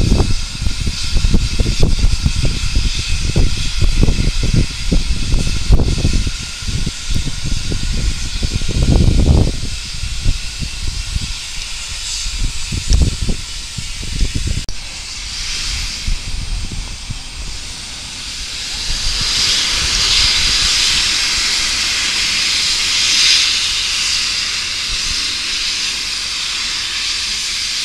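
Steam locomotive hissing as it lets off steam. A steady, loud hiss swells up a little past the middle and holds, over irregular low rumbling through the first half.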